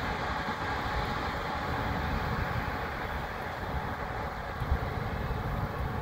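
Combine harvester running steadily as it harvests soybeans, a constant mechanical drone with no change in pace.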